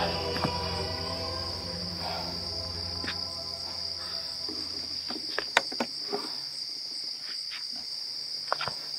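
Crickets chirping steadily in a high, even trill, while background music fades out over the first half; a few light clicks in the second half.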